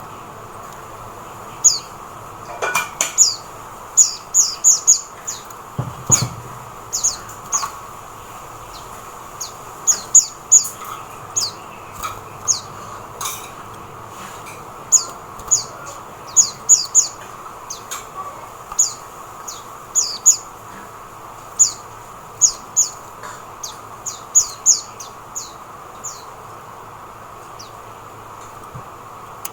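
A white-eye (mata puteh) calling in quick clusters of short, thin, high chirps, each sweeping downward, with short pauses between clusters. There is one brief low thump about six seconds in.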